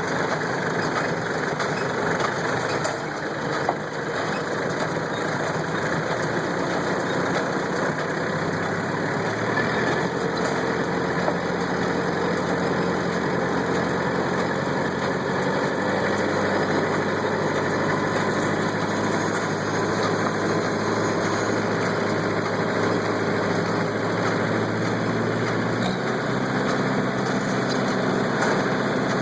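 Kubota tractor's diesel engine running steadily under load, pulling a working hay baler, its pitch shifting slightly a few times.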